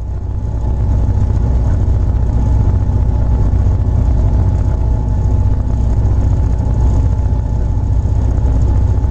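Locomotive with a snowplow on its front ploughing through snow on the track: a loud, steady, deep rumble of the moving train and the snow being thrown aside, swelling in over the first second.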